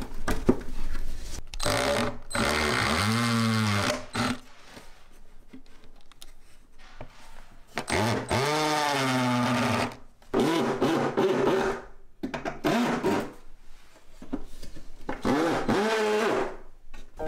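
Cordless drill driving screws into pine boards, in four or five bursts of a second or two each; the motor's pitch sags and recovers as each screw bites. A few light knocks of wood come before the first burst.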